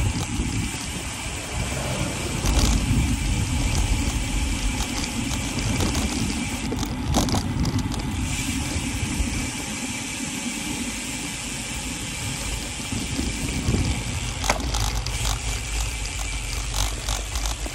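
Riding noise on a road bike: a steady wind rumble on the handlebar-mounted microphone mixed with tyres running on asphalt, with a few short clicks and rattles.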